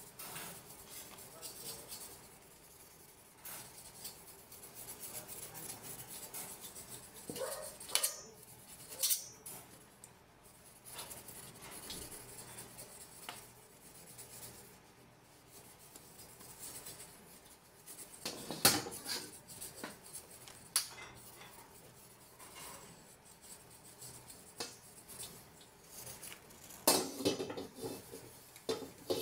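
Carbon steel wok being wiped inside with a folded pad to spread oil for seasoning: a soft rubbing, broken by sharp metal knocks and clanks as the wok shifts on the cast-iron burner stand, the loudest a little past the middle and near the end.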